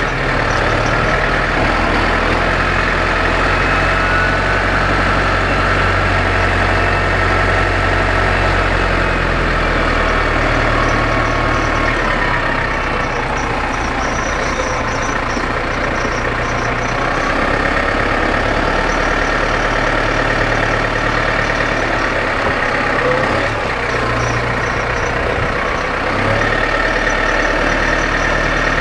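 Massey Ferguson 5600-series tractor's diesel engine running steadily while the tractor drives with its front loader raised. The engine note dips and rises a few times, around the middle and again near the end.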